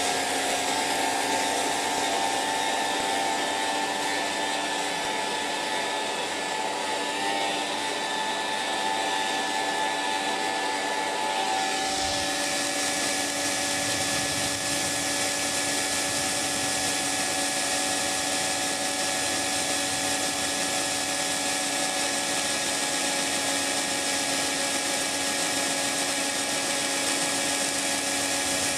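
Electric hairdryer running steadily: a continuous rush of blown air over a motor hum. About twelve seconds in, the tone shifts slightly and the hiss becomes brighter.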